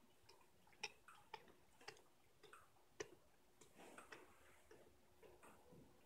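Near silence with faint, sharp taps about twice a second, a little irregular.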